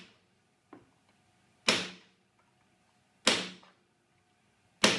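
Hammer striking a centre punch on a small steel plate to mark hole positions for drilling: a light tap, then three sharp metallic blows about a second and a half apart, each ringing out briefly.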